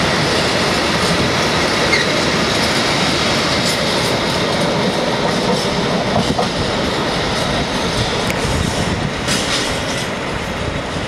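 Freight wagons of a departing train rolling past on the track, their wheels clicking over the rails, the rolling noise fading over the last few seconds as the end of the train draws away.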